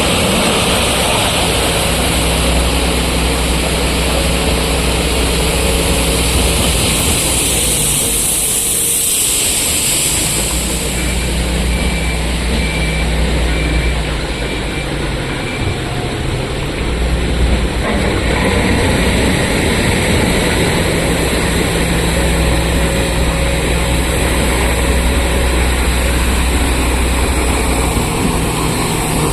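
Heavy diesel engines of earth-moving machinery running, a wheel loader and a truck working at a loading face. The low engine note drops away briefly about a third of the way in and again past the middle, then picks back up.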